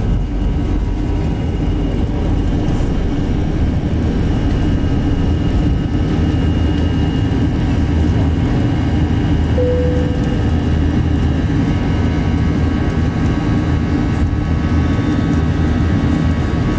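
Airliner's jet engines at takeoff power heard from inside the cabin: a steady rush of noise with a drone of engine tones, through the takeoff roll and climb-out. A brief short tone sounds about ten seconds in.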